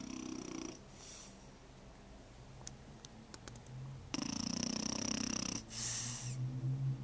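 French Bulldog puppy snoring in its sleep: a rasping snore at the start, quieter rumbling breaths, then a louder, longer snore about four seconds in followed at once by a shorter one.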